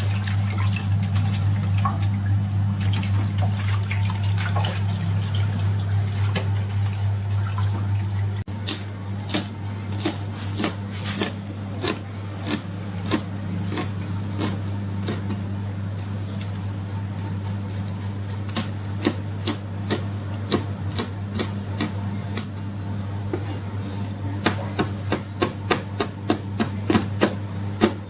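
Knife chopping on a cutting board, sharp regular strokes about twice a second starting about eight seconds in, over a steady low electrical hum.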